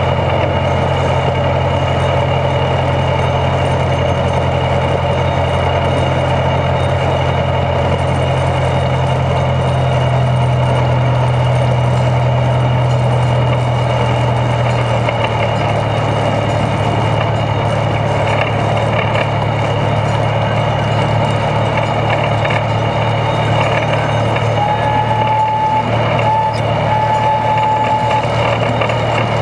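Internal-combustion engine and geared drivetrain of a two-foot-gauge geared locomotive, heard from underneath as it rolls along the track: a steady low drone whose pitch shifts slightly about halfway through. A brief high squeal comes near the end.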